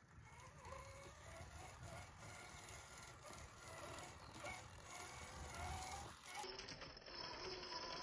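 Radio-controlled scale crawler driving slowly over creek rocks: a faint whine from its electric motor and gears that rises and falls with the throttle, over a low rumble and light rattling of tyres on stone.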